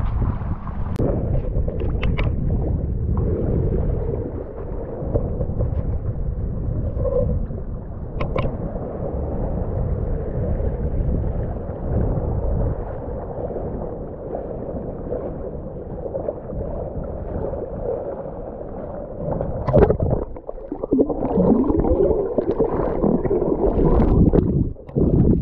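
Shallow sea water sloshing and gurgling against a GoPro in its waterproof housing held at the surface, heard muffled through the housing. In the last few seconds the camera goes under and the sound turns to underwater bubbling and gurgling.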